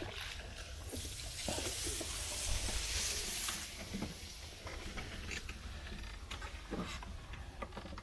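Wooden rowboat being paddled: water swishing with scattered small knocks and clicks, and a louder hissing rush for a couple of seconds starting about a second in.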